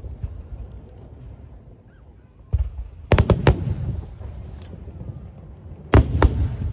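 Aerial firework shells bursting overhead. A deep boom comes about two and a half seconds in, then a quick cluster of sharp bangs around three seconds, and two more loud bangs near the end. A low rumbling echo carries on between the bursts.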